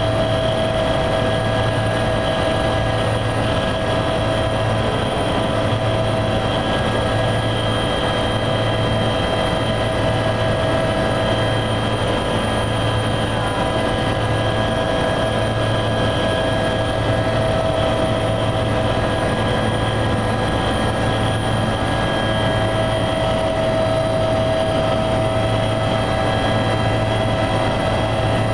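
Helicopter in flight heard from inside the cabin: a steady drone of rotor and turbine, with a low pulsing hum under several steady whining tones.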